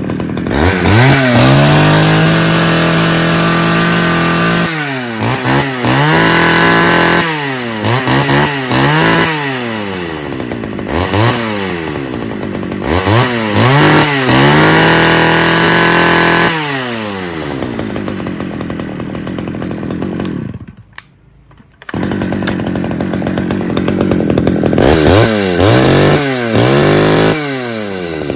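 A 41cc two-stroke chainsaw engine free-revving: the throttle is blipped again and again so the pitch sweeps up and falls back, with a few longer holds at high revs. About 21 seconds in the sound drops away for about a second, then the engine runs and revs again.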